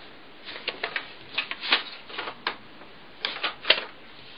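Sheets of paper being handled and leafed through on a table: a string of short, irregular rustles and paper flicks.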